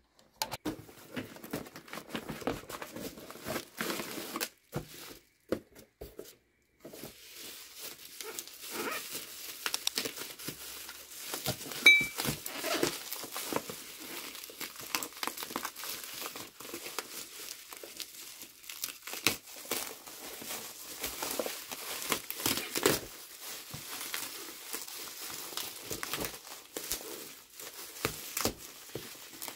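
Bubble wrap crinkling and crackling as it is handled and pulled off a boxed conference camera, in uneven spells of rustling with a couple of short pauses about five seconds in.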